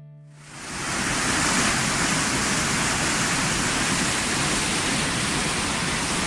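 Waterfall, a steady rushing roar of falling water that fades in about half a second in and then holds even.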